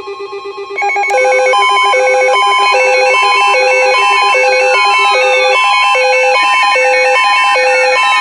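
Electronic alert tones: a rapidly fluttering steady tone, then from about a second in a loud, layered, repeating pattern of alternating high and low beeps, with slowly falling tones sliding over it.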